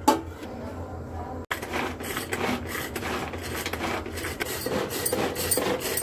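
Plastic pull-cord hand chopper: a knock as the lid goes on, then from about a second and a half in, a run of quick rasping strokes as the cord is pulled again and again and the blades whirl through chunks of onion, garlic, ginger and green chilli.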